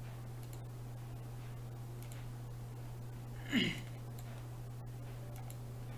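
Steady low electrical hum from the recording setup, with faint computer mouse clicks. About three and a half seconds in comes one brief sound that falls in pitch.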